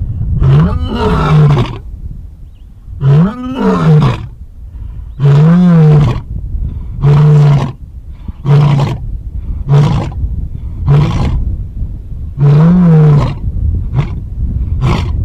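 A large animal's deep calls repeated about once a second, a few longer rising-and-falling calls among shorter ones.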